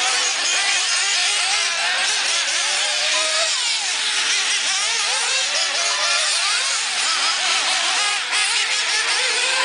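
Several 1/8-scale nitro RC buggy engines racing, a high-pitched whine that keeps rising and falling as the cars rev and back off around the track, several engines overlapping.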